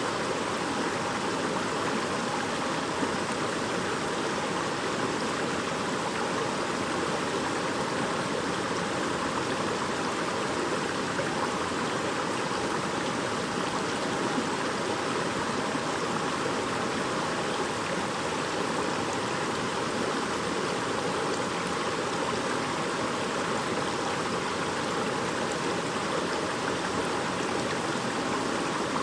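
Shallow stream babbling steadily over stones, an even rushing and gurgling of flowing water.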